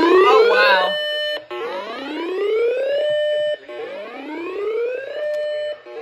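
Midland weather alert radios sounding their siren alarm for a flash flood warning: a loud electronic wail that rises in pitch, holds at the top, and repeats about every two seconds. Two units are slightly out of step at first.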